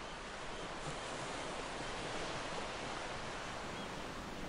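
Ocean surf breaking and washing over a rocky shore, a steady rush of waves.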